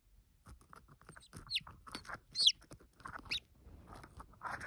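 Newly hatched chicken chick peeping: three short calls, each falling sharply in pitch, about a second apart, with soft scuffling in between.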